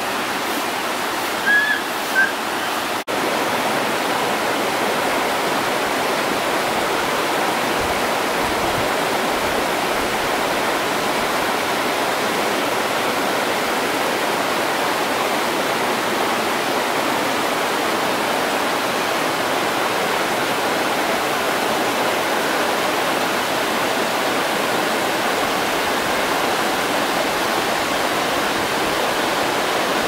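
Waterfall: a steady rush of falling water. About a second and a half in there are two brief, sharper sounds, and the sound cuts out for an instant around three seconds.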